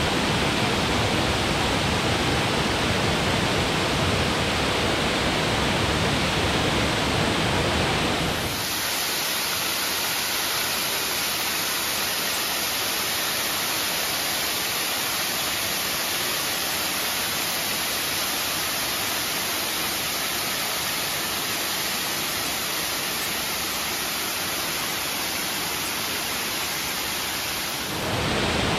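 A wide waterfall cascading over many thin rock ledges: a steady, loud rush of falling water. About eight seconds in, the deep rumble drops away and the rush turns thinner and hissier, and the fuller sound comes back near the end.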